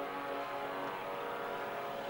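Tail of a ship's horn blast: its several steady tones linger faintly and fade out within about the first second, leaving a steady rushing noise.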